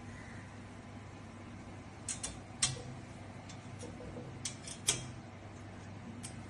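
Small screwdriver turning screws into the corners of a shelf rack, giving a scattering of short, sharp ticks and clicks that begin about two seconds in, over a faint steady hum.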